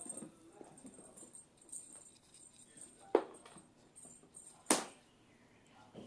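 Kittens playing on a hardwood floor: light scuffling and patter, with two sharp knocks about a second and a half apart.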